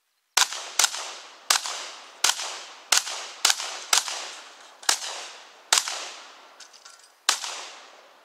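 Ten gunshots fired one after another at an uneven pace, about one every half second to a second and a half, each trailing off in a long echo. A few faint clicks come shortly before the last shot.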